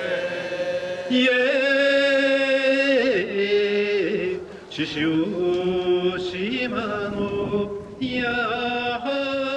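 Men's voices chanting a Shinto ritual song in long, drawn-out notes that slide and bend between pitches, with short breaks between phrases.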